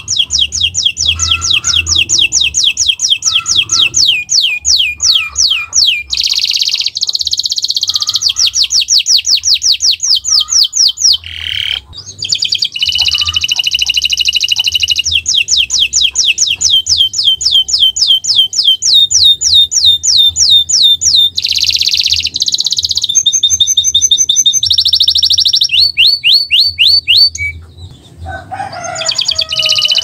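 Domestic canary singing a loud, continuous song of fast trills: rapid strings of repeated sweeping notes that change from one run to the next. There is a brief break about twelve seconds in and another near the end.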